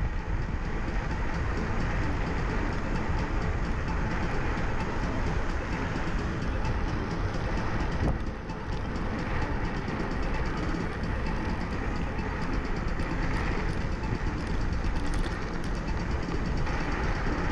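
Steady rush of wind on the microphone and road rumble while riding a Speedway 5 electric scooter at speed, heard through a chest-mounted GoPro, easing briefly about eight seconds in.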